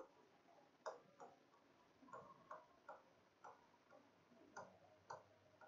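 Faint, irregular ticks of a stylus touching and lifting off the glass of an interactive touchscreen board during handwriting, about a dozen small taps over a few seconds.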